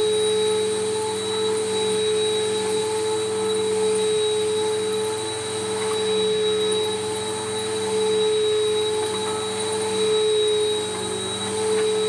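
Bissell PowerForce Helix 1240 bagless upright vacuum cleaner running on a rug, a steady motor whine over rushing air. The sound swells and eases every couple of seconds as the vacuum is pushed back and forth.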